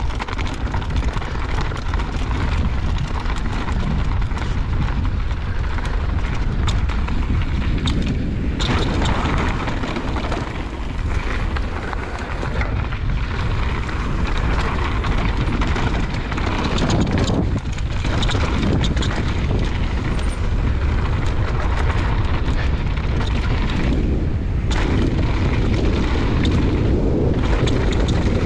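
Mountain bike riding fast down a dirt trail: heavy wind buffeting on the microphone over tyres rumbling on the ground, with frequent short knocks and rattles from the bike.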